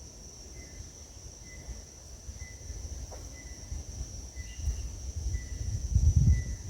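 Insects droning steadily on one high pitch, with a short higher chirp repeating about once a second. A low rumbling noise on the microphone builds up and is loudest near the end.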